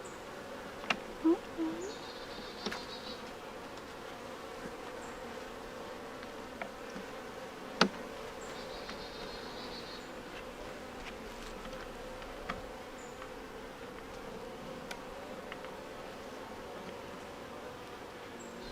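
Honeybees humming steadily in a swarm of flying workers, with a few sharp clicks and knocks, the loudest about eight seconds in.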